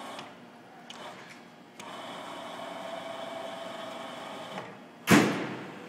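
Milltronics MB20 CNC bed mill's X-axis feed drive and ball screw moving the table: a steady machine whine that falls away briefly near the start, resumes, and stops a little before the end. About five seconds in comes a short, loud burst of noise.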